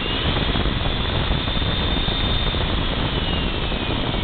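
Milwaukee electromagnetic base drill's motor running free in reverse at a raised speed setting: a steady mechanical hum with a high whine that climbs slightly and then slowly falls in the second half as the speed is turned back down.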